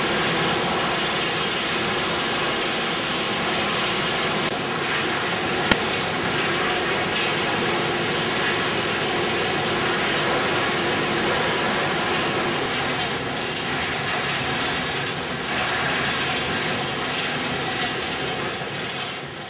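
Wood chip plant machinery running steadily: belt conveyors carrying wood chips and pouring them into a bin, with a single sharp click about six seconds in.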